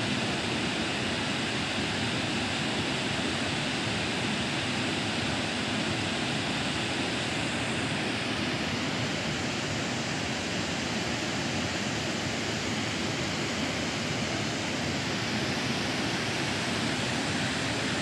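Waterfall: the steady, even rush of water pouring over the falls and into the river below.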